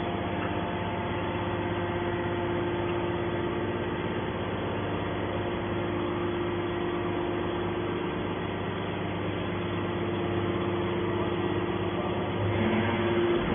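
Hydraulic scrap baler's power unit (electric motor and hydraulic pump) running steadily, a constant hum that grows a little louder near the end.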